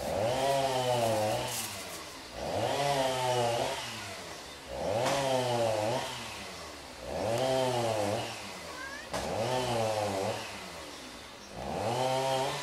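Domestic cat giving a series of low, drawn-out yowls, six of them, each about a second long and about two seconds apart, the pitch bending within each call.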